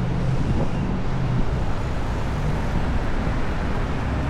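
Steady city traffic noise of passing motor vehicles, with a low engine hum that fades out about half a second in.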